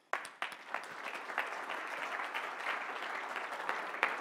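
Audience applauding: a dense patter of clapping with a few louder single claps standing out.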